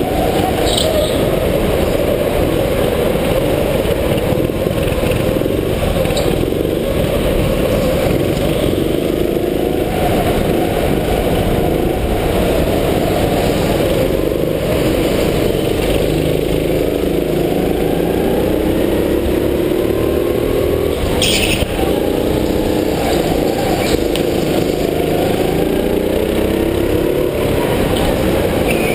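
Rental go-kart engine running hard from on board, its pitch rising and falling as the kart accelerates out of corners and slows into them, with other karts' engines around it. A brief hiss comes about two-thirds of the way through.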